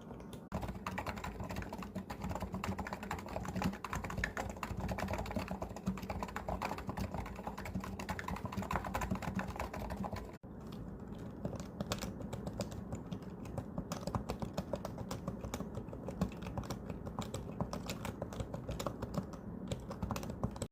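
Continuous fast typing on electrostatic capacitive (Topre-type) keyboards, a dense stream of soft key strokes. About halfway through there is a sudden break, and the typing goes on with a duller sound that has less treble, as if on a second keyboard.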